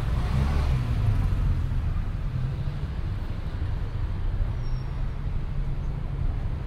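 Port-city street ambience: a steady low rumble of road traffic, with a brief hiss in the first second as a vehicle passes.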